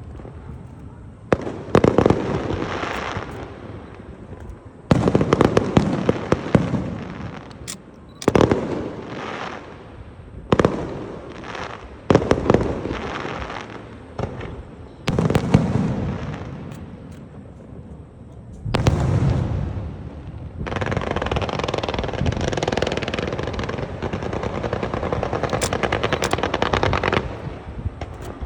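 Fireworks going off: about seven sharp bangs a few seconds apart, each trailing off in crackle, then a long unbroken stretch of dense crackling near the end.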